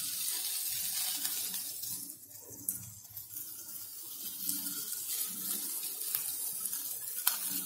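Faint, steady frying sizzle from a pan of diced potatoes, peppers and eggs, with two light clicks.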